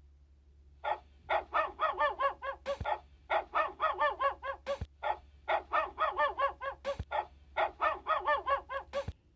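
Dog barking quickly in four runs of short, repeated barks with brief pauses between them.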